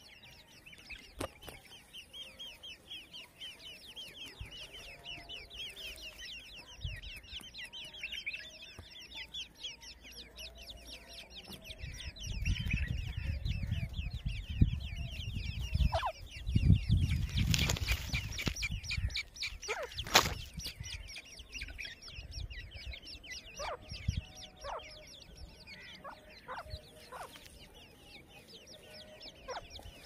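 Grey francolin hen and her chicks calling: a steady run of rapid high chirps, with a few short lower clucks in the second half. About halfway through, a low rumble and a few loud knocks cover the calls for several seconds.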